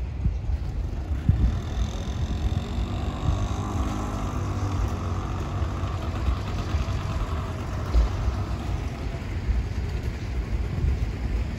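Engine of a motor vehicle running, strongest in the middle of the stretch, over a steady rumble of wind on the microphone.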